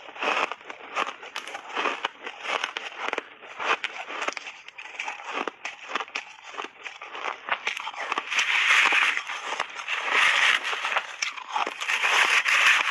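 A person biting and chewing crunchy refrozen shaved ice: rapid, irregular crackling crunches, with longer runs of denser grinding crunches in the second half.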